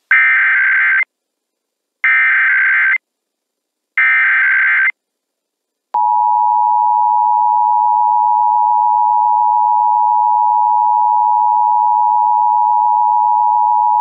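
Emergency Alert System SAME header: three one-second bursts of screechy digital data tones about a second apart, followed about six seconds in by the steady two-tone EAS attention signal, which holds without a break. Together they open an EAS Required Monthly Test.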